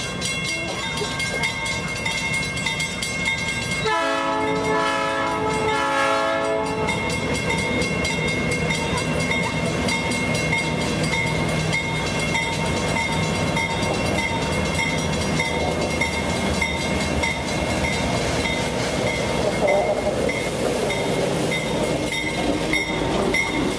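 A train running through a grade crossing, with a steady rumble of wheels on the rails and the crossing bell ringing on and on. About four seconds in, the locomotive sounds its horn for nearly three seconds, with a brief break near the end.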